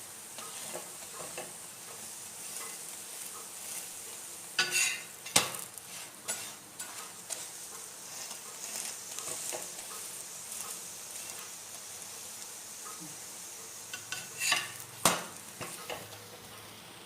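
Parotta frying in oil on a flat griddle (tawa), a steady sizzle. Sharp scraping clicks of a utensil against the griddle come about five seconds in and again near fifteen seconds.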